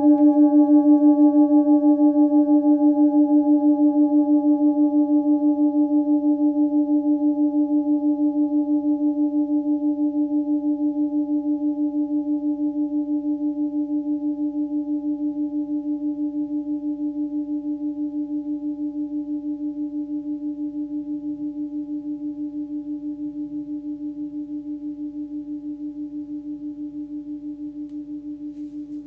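A 16 cm Tibetan singing bowl rings on and slowly dies away. Its low tone sits near 299 Hz (D), with fainter higher overtones, and it wavers in an even, fast wobble as it fades.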